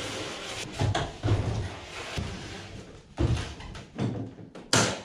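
Plywood crate parts being handled and set down: a series of wooden thuds and knocks with some scraping, the sharpest and loudest knock near the end.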